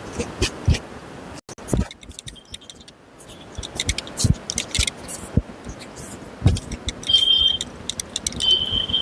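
Clicks, knocks and rustling of a patient being handled during a chiropractic back adjustment, with a brief high steady tone twice near the end.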